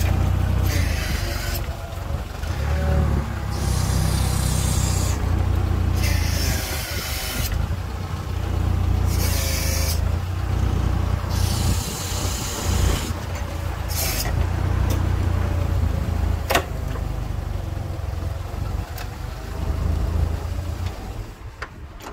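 Forklift engine running steadily as the truck is driven and its mast worked, with about six short hissing bursts spread through and a single sharp click about sixteen seconds in.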